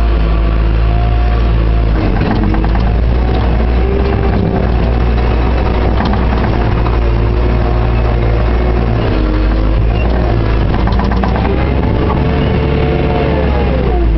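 JCB 532-120 telehandler's diesel engine running steadily, heard from inside the cab. A whining pitch above the engine swings up and down as the revs rise and fall while the machine manoeuvres and works its boom.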